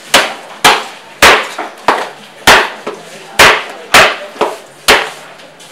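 Heavy cleaver chopping fish on a wooden chopping block: about nine sharp, loud strikes at an uneven pace, roughly one every half second to second.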